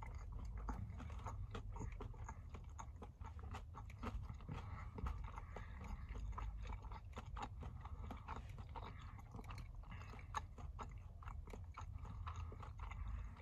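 A man chewing a mouthful of breakfast sandwich, with many small crunches and mouth clicks from its crispy bacon, over a steady low rumble.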